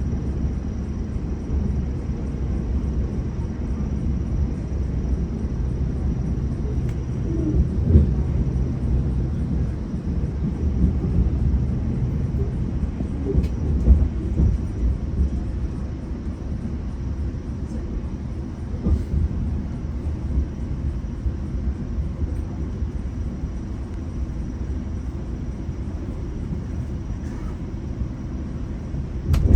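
GO commuter train running along the track, a steady low rumble with occasional knocks from the wheels and rails.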